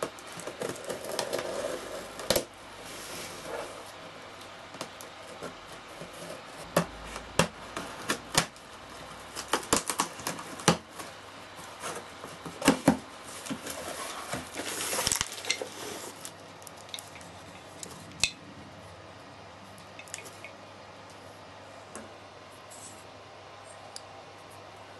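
Packing tape being peeled and torn off a cardboard parcel, with the cardboard rustling and scraping: irregular sharp snaps and rasps through the first sixteen seconds or so, then only quiet handling.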